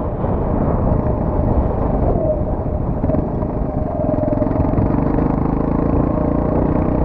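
A 2009 Qlink XF200 motorcycle's engine running steadily under way, its note shifting slightly, with wind rumbling on the microphone.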